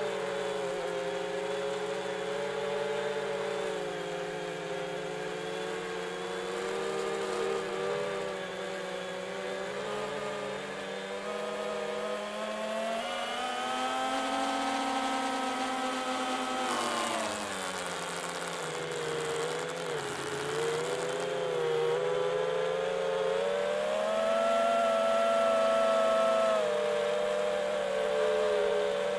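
FPV quadcopter's brushless motors and propellers whining, recorded close to the props, the pitch rising and falling with throttle: a climb in the middle, a drop, then another rise near the end.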